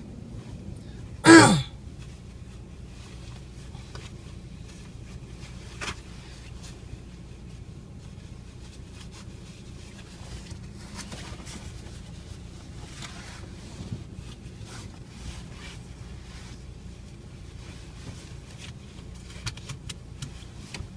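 Car cabin noise: a steady low engine and road hum, with a brief loud sound falling in pitch about a second in and a few faint clicks.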